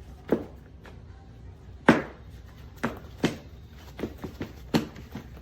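A run of sharp hard knocks on a hard surface: about five loud ones, unevenly spaced half a second to a second and a half apart, with a few lighter ones between them. The loudest comes about two seconds in.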